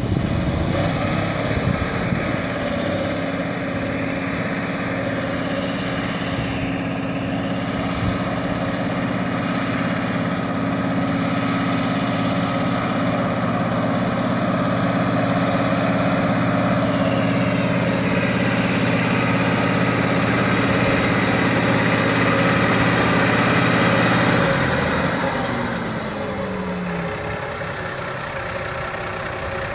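Heavy water truck's diesel engine running steadily at raised revs while water jets hiss from its spray heads. About 25 seconds in, the engine note falls away and the sound gets quieter as the spraying ends.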